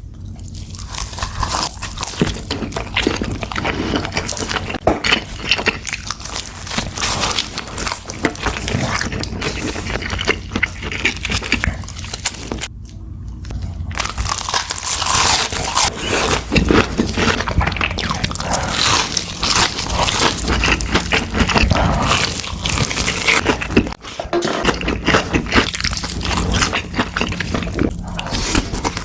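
Close-miked eating: big crunchy bites and chewing of fast food, with dense crackling crunches and mouth sounds, broken by a brief pause about 13 seconds in.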